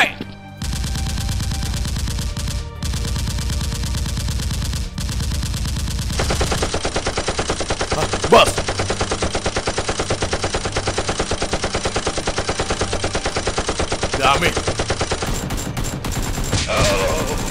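Rapid automatic-gunfire sound effects laid over a toy-blaster fight, firing in long, sustained bursts that settle into an even, fast rhythm of shots after about six seconds. A short, sharp rising sound opens it.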